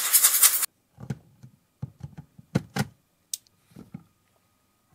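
A loud hiss of compressed air from a blow gun cuts off abruptly under a second in. It is followed by scattered light knocks and clicks of lens parts and tools being handled on a workbench.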